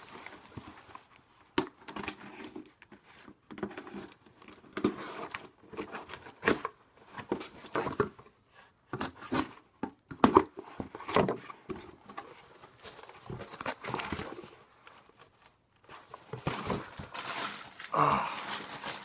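A parcel being opened and unpacked by hand: irregular rustling, crinkling and tearing of packaging, with a few sharp clicks and knocks.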